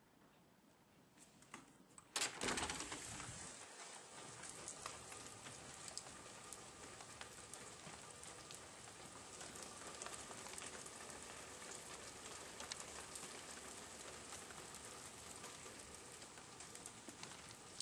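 Steady rain falling on a stone patio and steps, with many small drips pattering. For the first two seconds it is faint and muffled behind a closed glass door; about two seconds in the door opens with a brief loud rush, and the rain is heard clearly from then on.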